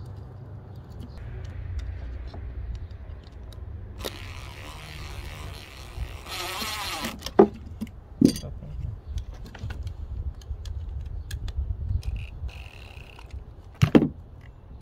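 Tools and small metal hardware being handled while a transducer mounting bracket is fitted: scattered clinks and knocks, the sharpest about seven seconds in and near the end, with a second-long burst of noise about six seconds in. A low wind rumble on the microphone runs underneath.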